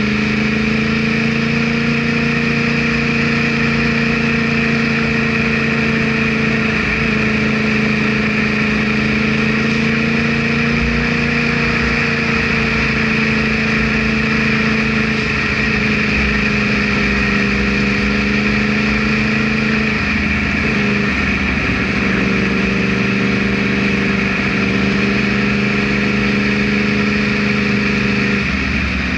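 Yamaha R1 motorcycle's inline-four engine running at a steady, even pitch as the bike cruises, with small drifts in engine speed and a brief waver about twenty seconds in and again near the end.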